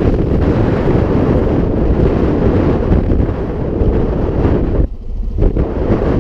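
Strong wind buffeting the microphone, a loud low rumble that drops briefly about five seconds in.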